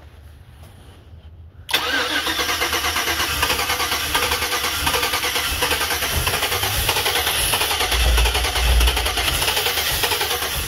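Starter motor cranking the 5.3-litre V8 of a 2007 Chevy Avalanche, cutting in suddenly about two seconds in and turning over steadily without the engine catching. This is a crank-but-no-start, which the owner suspects comes from the anti-theft module or a cheap key.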